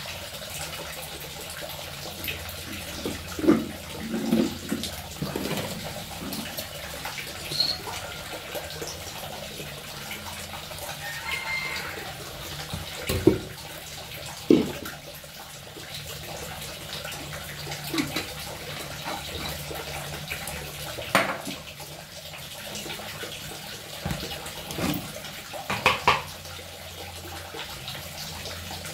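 Tap water running into a sink while dishes are washed by hand, with a few sharp clinks and knocks of dishes being handled.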